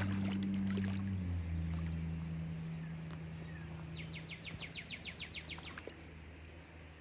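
A steady low engine hum that drops slightly in pitch about a second in and then fades away, with a short run of rapid high ticking, about ten a second, near the middle.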